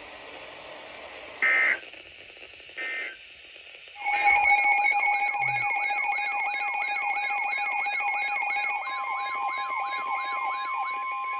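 Two short, high data bursts: the end-of-message code of NOAA Weather Radio's SAME alert signal. About four seconds in, an electronic alert alarm starts, a warble repeating about three times a second over steady tones. Near the end the steady 1050 Hz weather-radio warning tone joins it, the signal that a new warning message follows.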